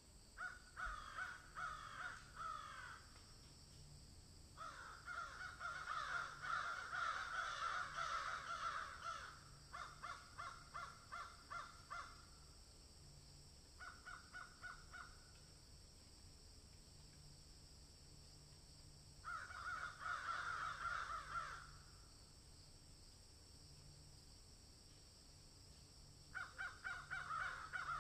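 Animal calls in repeated bouts, each one to four seconds of rapid pulses, separated by pauses of a few seconds.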